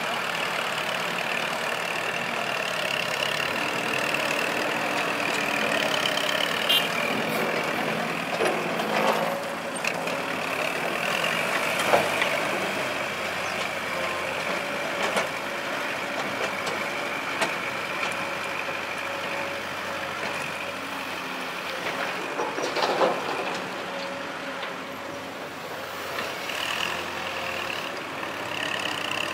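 Kubota farm tractor's diesel engine running steadily as it pushes and levels wet clay with its front blade, with a few sharp knocks scattered through.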